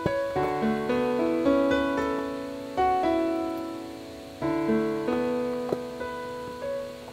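Background music: a gentle solo piano, notes and chords struck and left to ring and fade, with a fresh stronger chord every second or two.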